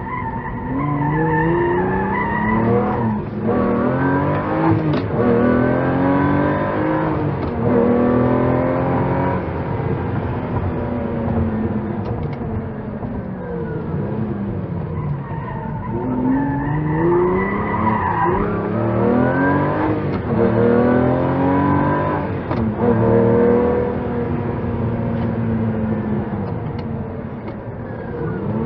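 Lamborghini supercar engine accelerating hard through the gears: its pitch climbs, drops back at each shift and climbs again, in two long runs, with a few sharp cracks along the way.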